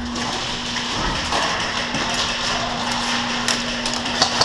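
Steady hum and hiss of an indoor airsoft arena, with a few sharp cracks of airsoft fire starting near the end.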